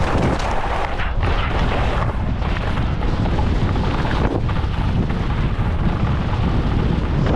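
Wind buffeting the camera microphone in a steady low rumble, with skis scraping over spring snow.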